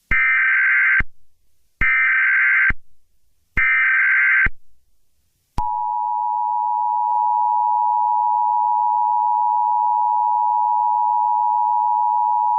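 Emergency Alert System tones: three bursts of SAME header data, each about a second long with short gaps, then about five and a half seconds in the steady two-tone attention signal (853 and 960 Hz) begins and holds.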